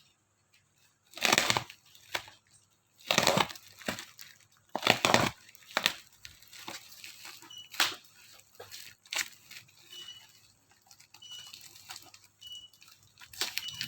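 Plastic packaging being crinkled and torn open by hand, in several loud rustling bursts a second or two apart.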